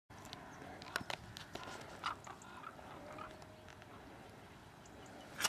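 Sheep coughing: a short harsh cough about two seconds in and a louder one at the very end, with scattered small knocks between them.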